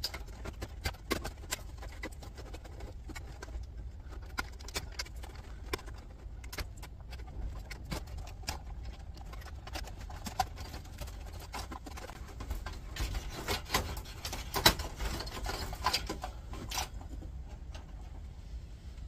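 Irregular clicks, taps and rattles of wiring being unplugged from the CD drives in a steel computer tower: plastic power and data connectors pulled free, with cables and the metal chassis knocked as hands work inside. The knocks come thicker and sharper around thirteen to sixteen seconds in, over a low steady hum.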